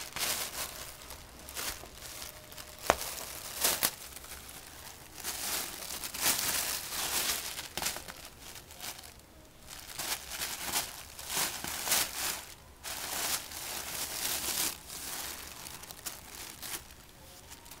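Thin plastic shopping bag crinkling and rustling in irregular bursts as a cat digs and burrows its head into it, with one sharp tick about three seconds in.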